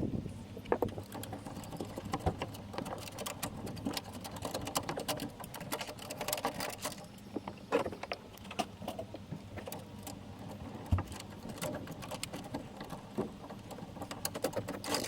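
Camera cable being pushed and worked into the tailgate's wiring passage: a long run of irregular small clicks, scrapes and rustles.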